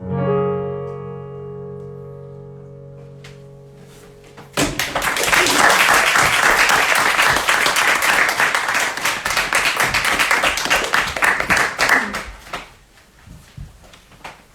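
A final accompaniment chord rings out and slowly fades, then audience applause breaks out about four and a half seconds in and dies away near the end.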